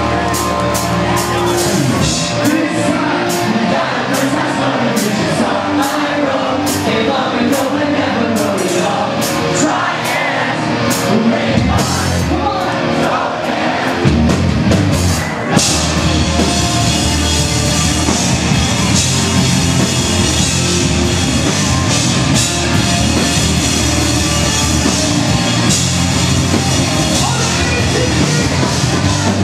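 Live pop-punk band playing loud and amplified, with sung and shouted vocals over guitars and drums. Sharp drum strikes stand out at first, about two a second; about halfway through the full band comes in harder, with cymbals crashing steadily.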